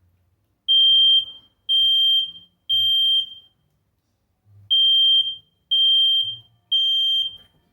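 Smoke alarm sounding under a press of its test button: three loud, high-pitched beeps, a pause of about a second and a half, then three more. This is the temporal-three evacuation pattern, and it shows the alarm works.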